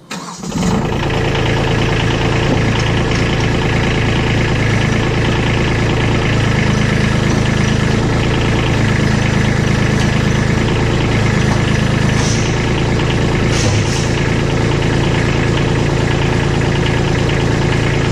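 Kubota compact tractor's diesel engine running steadily.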